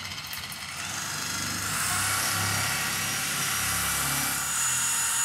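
Lake Country UDOS 51E electric polisher with a 1200-watt motor, running in its 12 mm random-orbit mode and working a foam pad with cleaner wax over car paint. It gets louder between one and two seconds in, then runs steadily.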